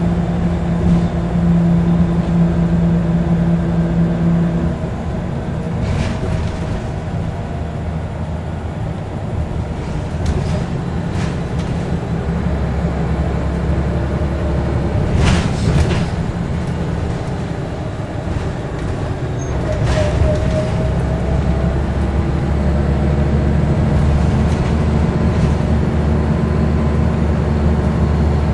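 Scania L94UB single-deck bus heard from inside the saloon while driving: the diesel engine's steady note drops about five seconds in and deepens, with a few knocks and rattles from the body, the loudest about fifteen seconds in, and the engine pulls harder again near the end.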